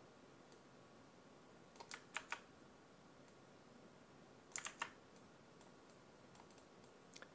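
A few quiet computer keyboard key presses in two short clusters, about two seconds in and again just before five seconds, with fainter ticks near the end; otherwise near silence.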